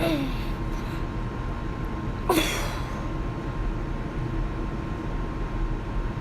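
A steady low hum, with one short hiss and a falling squeak about two seconds in.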